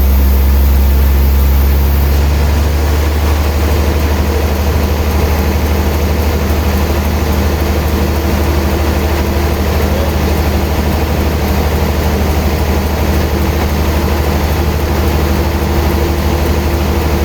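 Heavy sawmill machinery running: a loud, steady low engine drone with a constant hum.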